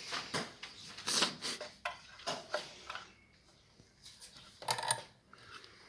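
Scattered light clicks, taps and rustles from hands handling a small plastic sewing machine and its thread spool, with a quieter stretch in the middle.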